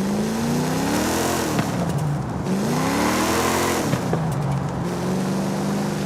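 1968 Dodge Dart Hemi Super Stock's 426 Hemi V8 revved twice, each rev rising and dropping back, then settling to a steady idle about four seconds in.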